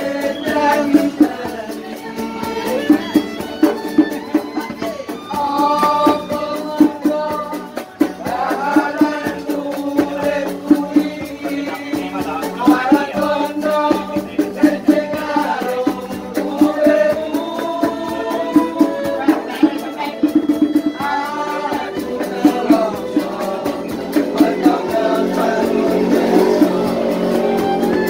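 Street buskers performing a song: a voice sings a melody over a steady rhythm of sharp percussion strokes.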